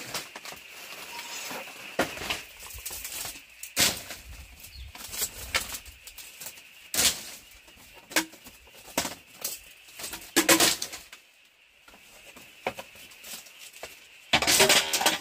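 Dry bamboo slats and woven bamboo panels being handled and moved: irregular knocks, clatters and rustling, with a louder burst of clattering near the end.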